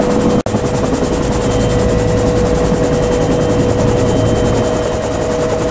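Bell UH-1 Huey helicopter running in flight, heard from the open cabin door: a steady rush of turbine and rotor noise with a constant whine and a fast, even flutter of the blades. The sound cuts out for an instant about half a second in.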